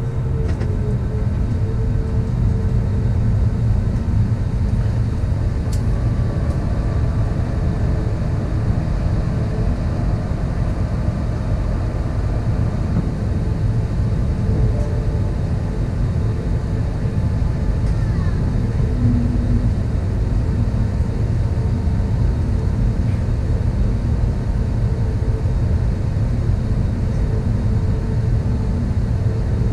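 Steady low rumble inside the cabin of an Airbus A320neo on the ground, the aircraft's machinery and cabin air running at a constant level with a few faint steady tones above it.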